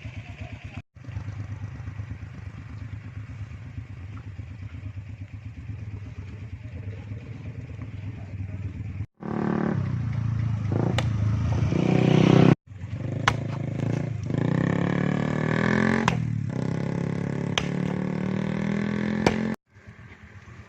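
A small engine running, in several clips cut together with abrupt breaks; louder and with more changes in pitch in the second half, with a few sharp clicks.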